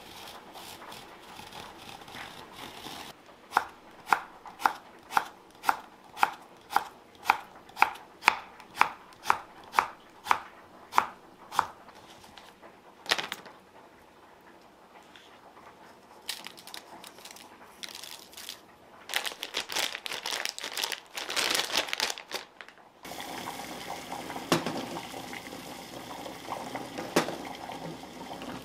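A knife slices a cucumber on a wooden cutting board in about sixteen even chops, roughly two a second. Then a plastic bag crinkles as the salted cucumber slices are kneaded in it. For the last few seconds, water bubbles at a rolling boil in a saucepan.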